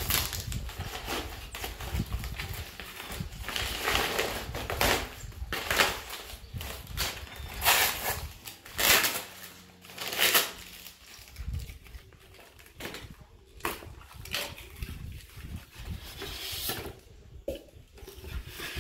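Paper parcel wrapping and a taped cardboard box being torn open and crumpled by hand: a long run of irregular rustling, crinkling and tearing, in uneven bursts.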